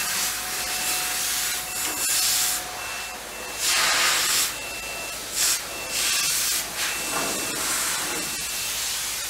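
Handheld gravity-feed compressed-air paint spray gun hissing in repeated bursts of under a second to about a second as the trigger is pulled and released.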